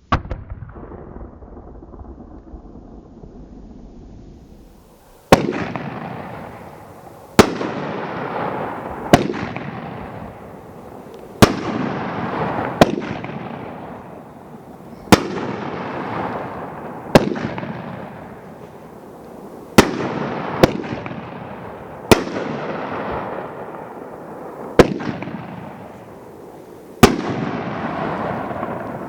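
Red Rhino "Atomizer" firework firing. After about five seconds of faint steady hiss, about a dozen sharp bangs go off one to three seconds apart, each trailed by a hissing tail that dies away.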